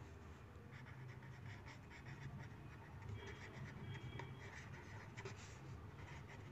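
Faint scratching of a felt-tip pen writing on paper, a quick run of short strokes as a word is written out.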